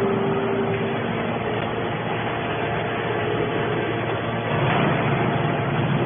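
Hydraulic scrap metal baler running with a steady mechanical drone, which gets louder about four and a half seconds in.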